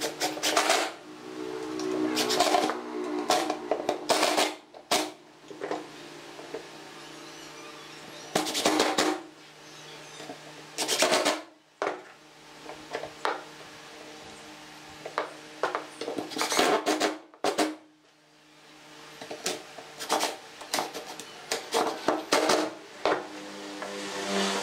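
Cordless impact driver driving screws into pine slats in about half a dozen short bursts of roughly a second each. Between them come clicks and knocks of wood pieces being handled and set down.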